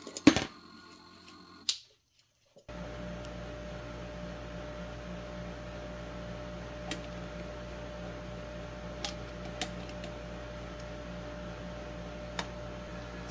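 A sharp metallic clatter as tools are handled at a small watchmaker's lathe, then a steady low hum with a faint steady whine, broken by a few light clicks of metal tools being handled.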